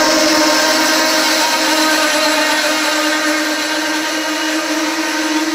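Amtrak GE P42DC diesel locomotive passing close by, its engine and fans running with a steady drone and whine, then the passenger cars rolling past on the rails.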